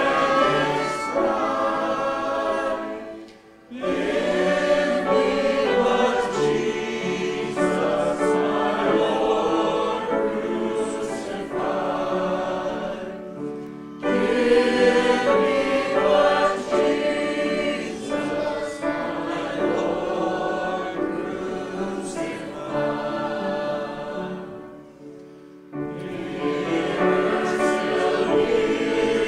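Congregation singing a hymn together, with short breaks between phrases about three and a half seconds in and again near the end.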